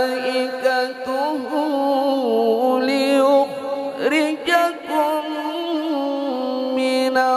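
A man reciting the Quran in the melodic mujawwad style, amplified through a handheld microphone, holding long ornamented notes with a quick swoop up and back down about four seconds in.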